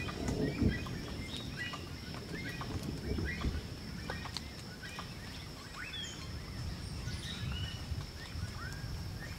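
Forest ambience: many short chirping calls, some sliding up or down in pitch, over a steady thin high-pitched whine and a low rumble that is louder in the first second.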